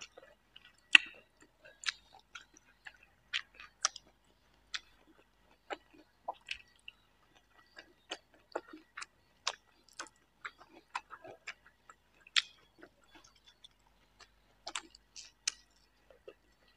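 Close-miked chewing with wet lip smacks and mouth clicks, coming irregularly, as a person eats rice and raw vegetables by hand.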